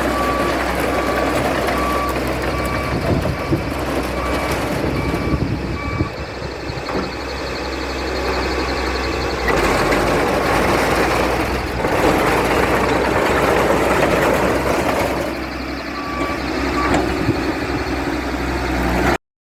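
Komatsu D31E bulldozer's diesel engine running steadily, with a reverse alarm beeping about twice a second for the first four seconds and again briefly around sixteen seconds in. The sound cuts off abruptly near the end.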